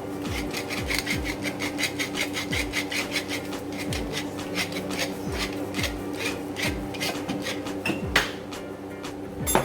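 Pepper grinder being twisted over chicken, giving a fast run of rasping clicks several times a second that thins out after a few seconds, with a sharper knock near the end. A song's steady beat runs underneath.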